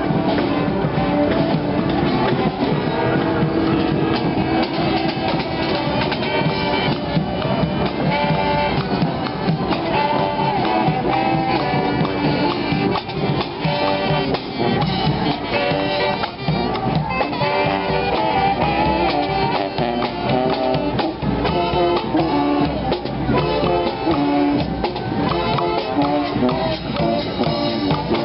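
A street brass band playing, with horns carrying the tune over drums.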